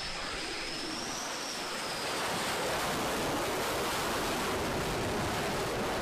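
Fighter jet engine noise on an aircraft carrier's flight deck: a steady rushing roar with a high turbine whine over it for the first two seconds, growing louder about two seconds in.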